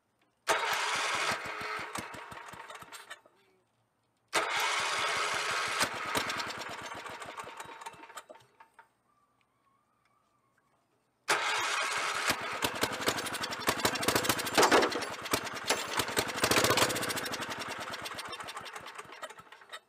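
Single-cylinder Kohler K181 engine being cranked over by its electric starter in three bursts, short, longer and longest, with pauses between, primed with a dab of two-stroke gas to see if it will fire. The cranking beats evenly and fades off within each burst.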